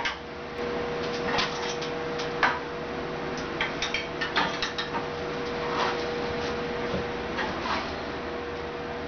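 Light metallic knocks and clicks of a 16-gauge mild steel strip being handled and set in place on a sheet metal brake's bed and fingers, a few scattered through, over a steady hum.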